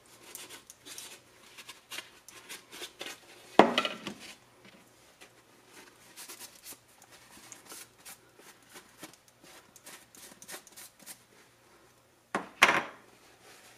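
Paper shop towel rubbing and rustling over 3D-printed plastic mold parts as they are wiped clean, with small clicks of the plastic being handled. A sharp knock of the plastic parts comes about three and a half seconds in, and two more close together near the end.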